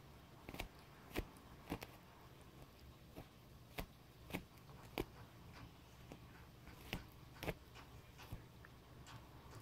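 Shih-poo puppy gnawing a chew: about a dozen sharp, irregular clicks and cracks of teeth on the chew, faint against a low steady hum.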